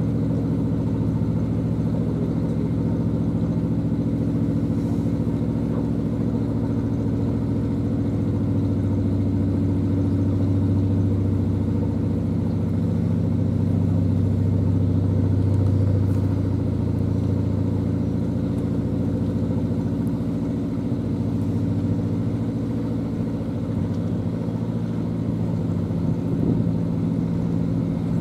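Narrowboat's inboard diesel engine running steadily at slow cruising speed, a little louder about halfway through.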